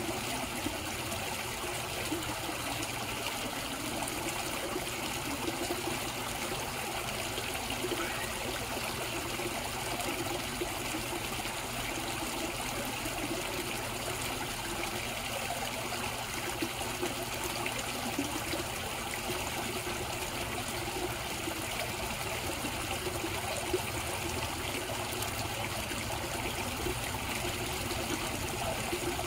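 Koi pond water trickling and running steadily.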